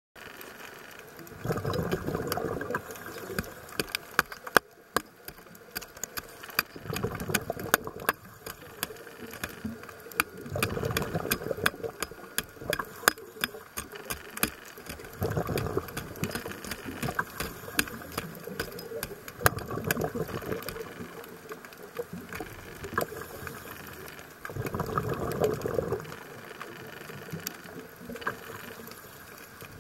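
Scuba diver breathing through a regulator underwater: six bursts of exhaled bubbles, each lasting a second or two and coming about every four to five seconds. Many sharp clicks are scattered throughout.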